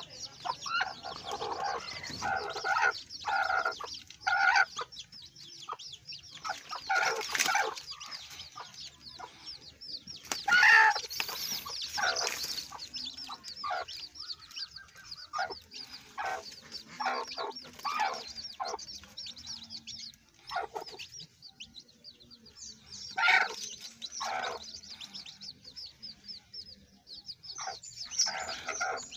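Chicks peeping in quick, high chirps while chickens cluck, with a few louder calls now and then.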